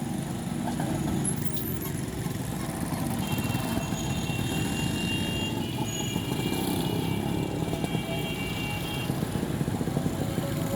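Road traffic: a steady, dense rumble of motor vehicles, with a few held high tones from about three to nine seconds in.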